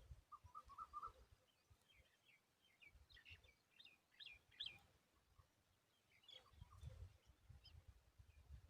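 Faint bird chirps and short calls: a quick run of notes in the first second, then scattered high chirps through the middle, with a few more later, over faint low rumbles.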